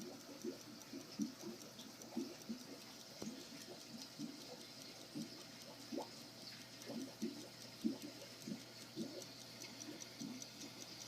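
Antique Swiss 8-day pocket watch ticking faintly and evenly, about five ticks a second, with soft irregular low taps alongside.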